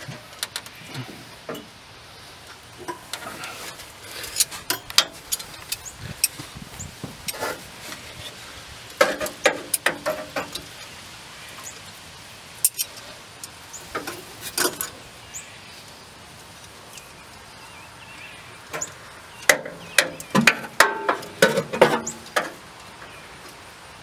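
Metal wrench clicking and clinking on the screw of a worm-drive hose clamp as the clamp on a lower radiator hose is worked loose. It comes in four short spells of rapid clicks, a few seconds apart.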